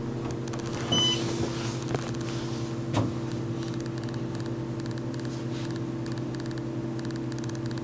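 Otis Series 5 hydraulic elevator running with a steady hum as the car travels. A short high beep sounds about a second in, with a few light clicks.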